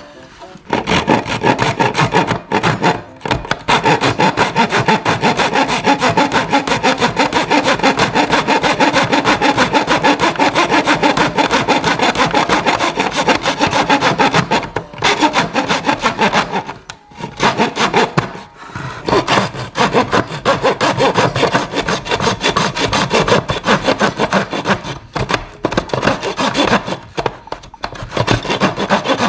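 Rapid, steady rasping strokes of a hand tool cutting away material, in two long runs with a pause of a few seconds in the middle. This is typical of shaving down a battery adapter's housing so that it fits.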